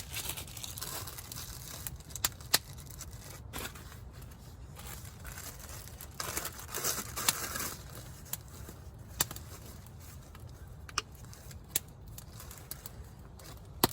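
Utensil scraping and clicking against a cast iron pan as cooked chicken is moved out into a bowl, with scattered sharp clicks and a few crinkly, rustling stretches.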